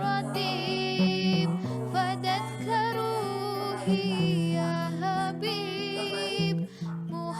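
Background music: a plucked guitar-like instrument with a melody line that may be sung, over steady bass notes.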